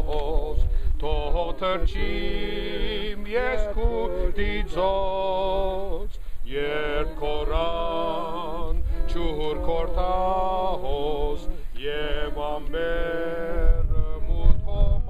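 A small group of men and women singing a hymn together without instruments, in long held phrases with a short breath about six seconds in. There is a low rumble on the microphone near the end.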